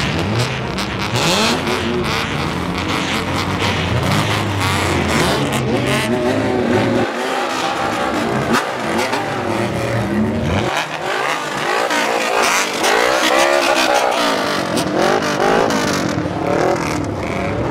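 A group of kaido racer cars with tall straight exhaust pipes revving as they drive off together, many engines blipping up and down in pitch over one another.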